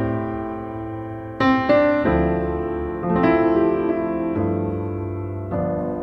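Piano music: slow, held chords, with a new chord struck about every one to one and a half seconds.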